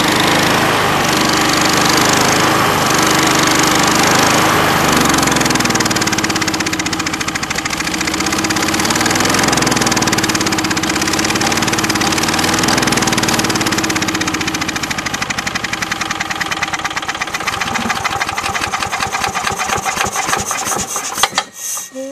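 Single-cylinder Briggs & Stratton lawn mower engine running steadily after ten months of sitting, with a moldy carburetor and stale gas. From about 14 s its separate firing strokes come through as it slows and weakens, and it stops suddenly near the end while the spark plug boot is being handled.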